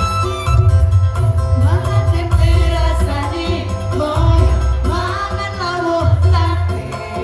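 Choir singing to electronic keyboard accompaniment with a heavy, pulsing bass; the voices come in about two seconds in, over the keyboard's melody.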